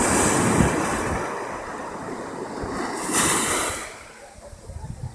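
Small waves breaking and washing up a sandy shore: a steady rush of surf, with a louder hissing surge of foam about three seconds in that then dies away.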